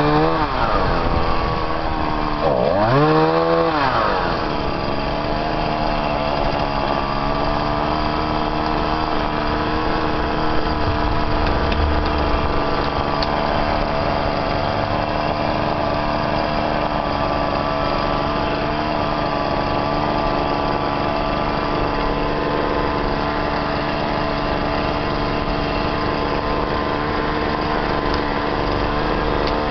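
Chainsaw engine revved up and back down in the first few seconds, then running at a steady speed.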